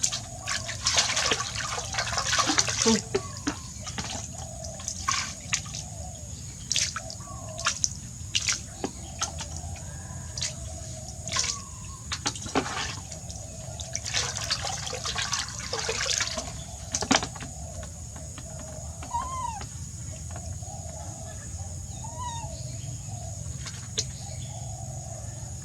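Bath water splashing and pouring around a pet monkey being bathed: irregular bursts of splashes and trickles, busiest in the first few seconds and again about two-thirds of the way through.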